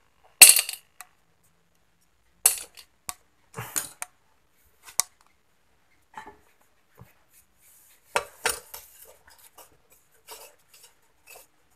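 Metal clinks and clicks as steel gearbox shafts and tools are handled in the open aluminium crankcase of a Yamaha V80 engine. A few sharp clinks are spread out, with the loudest about half a second in and two close together about eight seconds in.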